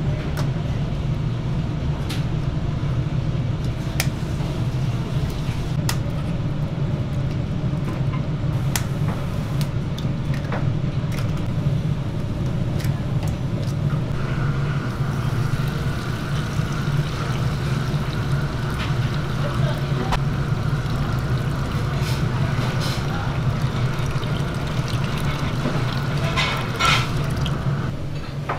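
Eggs being cracked open one after another, a sharp crack every couple of seconds, over a steady low mechanical hum. About halfway through, a thin steady whine joins the hum.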